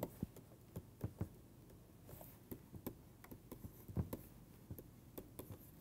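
Stylus tapping and clicking on a tablet screen while handwriting and drawing: faint, irregular clicks several times a second, the loudest about four seconds in.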